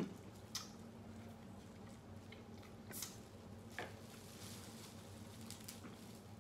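Faint cracks and clicks of snow crab shells being broken and picked apart by gloved hands, a few sharp snaps among softer crackle, over a steady low hum.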